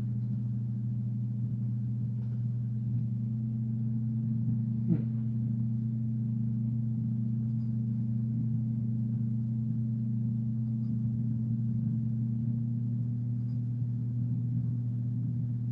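A steady low hum with a single sharp click about five seconds in.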